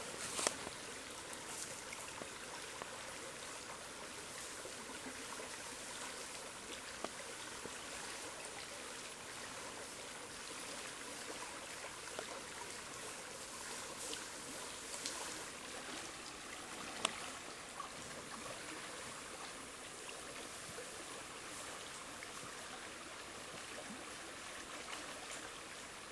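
Shallow woodland stream flowing steadily, a soft, even rush and trickle of water over stones, with a few faint clicks.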